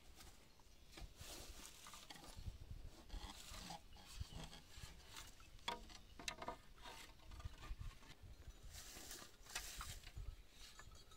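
Faint, irregular clicking, knocking and rubbing of split-bamboo slats and a bamboo pole being handled and fitted, with low rumbles underneath.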